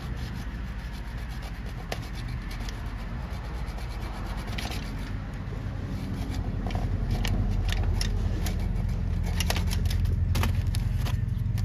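MIG welder laying a bead on a crankshaft tone ring: a steady arc buzz with irregular crackling spatter, growing louder about halfway through.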